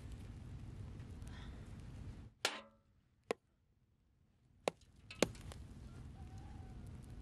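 Four sharp chopping knocks in the middle of the stretch, the first with a short rattle after it, over steady low background noise; the background drops out completely between the knocks.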